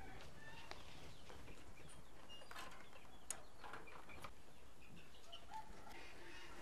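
Village chickens clucking and chirping faintly, with a few sharp clicks and knocks of handling among them.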